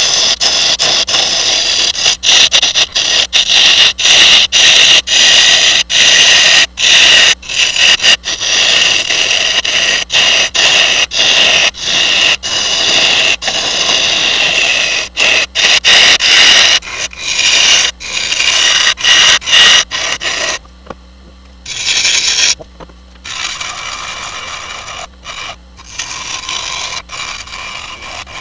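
Turning tool cutting into a spinning maple burl bowl blank on a lathe: a loud hissing scrape of wood being cut, broken by frequent short gaps between passes. From about 20 seconds in, the cuts come in shorter spells with quieter stretches between them.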